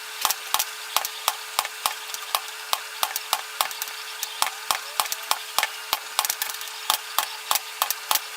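Leather being punched with holes: a rapid, even run of sharp taps, about three or four a second, over a faint steady hum.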